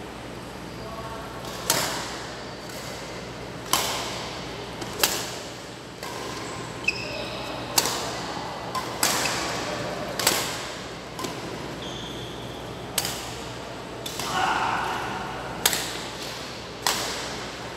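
Badminton rally: rackets striking a shuttlecock about ten times, each hit a sharp crack that rings in a large hall, one to three seconds apart. Short squeaks from players' shoes on the court floor come between hits.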